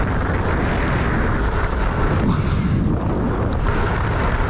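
Wind rushing and buffeting over an action-camera microphone while a mountain bike is ridden at speed, a steady rough rumble heaviest in the bass.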